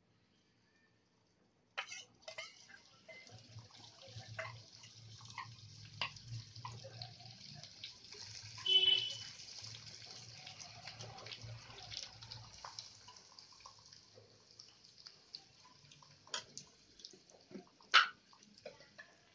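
A tadka frying in hot oil in a nonstick frying pan: a sizzle starts suddenly about two seconds in and keeps going, with a metal spatula clicking and scraping against the pan. There is a brief high-pitched squeal about halfway through and a sharp clack near the end.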